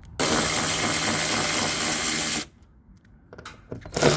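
Power drill running a socket on the 10 mm bolts of a car door, in two steady runs with a short pause between them, about two seconds apart.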